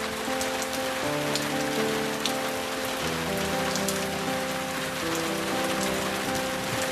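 Steady rain with occasional distinct drops, under soft music of long held notes that change every second or two.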